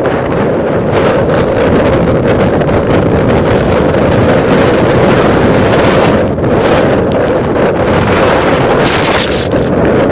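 Typhoon wind blowing hard across the microphone, a loud, continuous rumbling buffet. It slackens briefly about six seconds in, and a sharper, hissing gust comes near the end.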